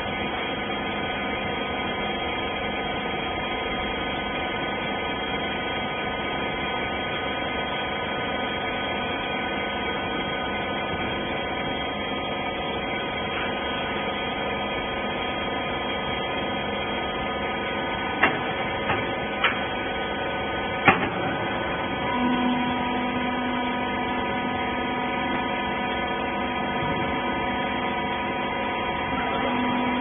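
Hydraulic rag baling press running, its motor-driven pump giving a steady hum of several tones. Three sharp clicks come a little past the middle, and a lower steady tone joins shortly after.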